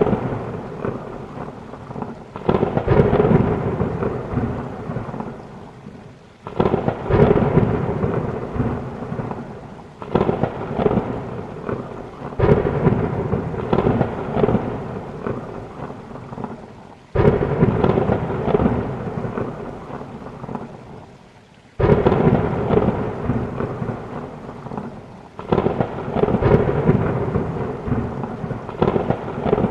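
Thunderstorm: rain falling hard, with rolling thunder. A new rumble breaks in sharply every few seconds and slowly dies away.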